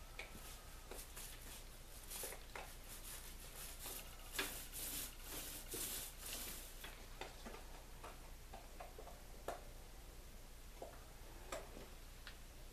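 Small paint roller working wet oil-based green enamel onto a canvas canoe hull: faint, irregular swishing strokes with little sticky clicks, busiest in the middle.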